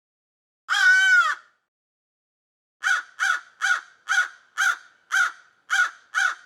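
Crow cawing: one long, drawn-out caw about a second in, then a run of eight short caws at about two a second.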